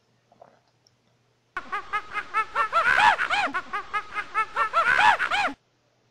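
A primate's rapid, high-pitched chattering calls, each a short rise and fall in pitch, starting about a second and a half in and lasting about four seconds.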